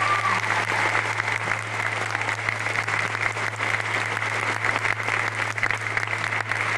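Audience applauding, a dense steady clapping, with a constant low electrical hum underneath.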